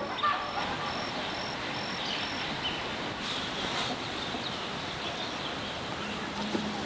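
An insect chirping in short, evenly spaced high pulses, about three a second, which stop after about two and a half seconds. Under it runs a steady outdoor hiss.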